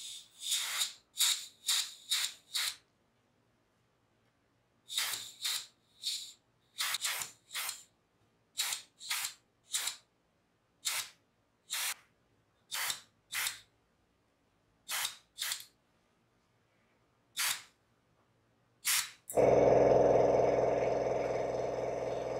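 Airbrush spraying paint in about two dozen short hissing spurts, in quick groups with pauses between. Near the end a much louder, steady machine hum starts suddenly and slowly fades.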